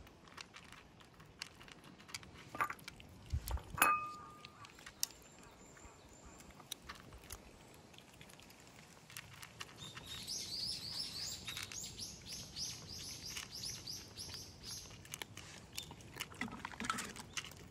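Cats crunching dry kibble from bowls: a steady patter of small clicks. A couple of brief chirps sound around three to four seconds in. From about ten seconds in, a bird sings a fast run of repeated high chirps for about five seconds.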